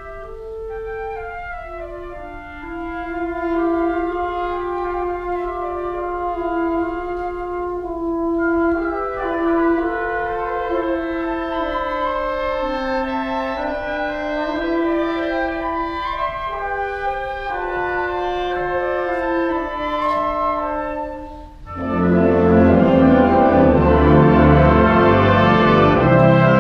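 A wind band playing live: a slow melody in the middle range over soft accompaniment, then after a brief hush near the end the full band comes in much louder.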